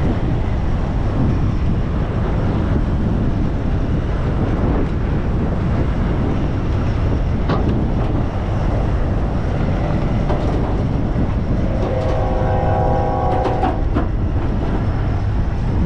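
Freight train rolling past, a steady rumble mixed with heavy wind buffeting the microphone. A steady pitched tone sounds for about two seconds near the end.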